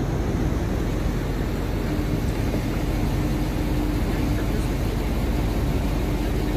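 Steady city street traffic: vehicle engines running and idling, with a low rumble and a faint steady hum.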